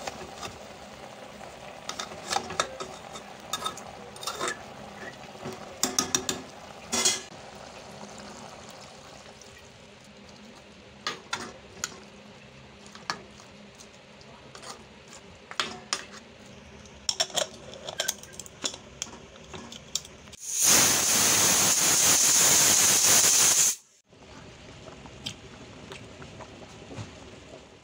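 A metal ladle stirring and scraping meat, tomato and garlic in a metal pot, with scattered clinks of ladle on pot. About two-thirds of the way through, a loud hiss starts abruptly, holds steady for about three seconds and cuts off, followed by a softer bubbling of the curry on the boil.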